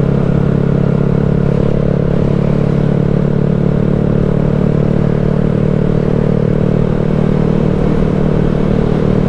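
2020 Honda Grom's 125 cc single-cylinder four-stroke engine running under steady throttle while riding, its note holding one steady pitch.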